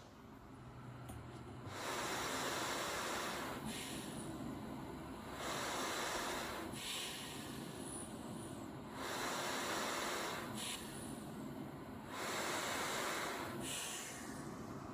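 Travel CPAP machine blowing air through a mask while the wearer breathes: a steady airy hiss that swells and eases with each breath, four swells about three and a half seconds apart.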